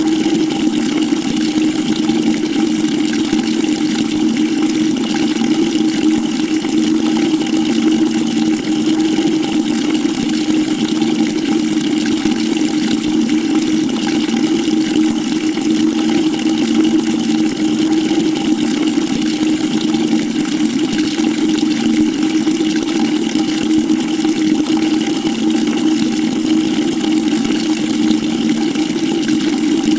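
Water pouring steadily into a bucket: a constant rush with a steady low tone underneath.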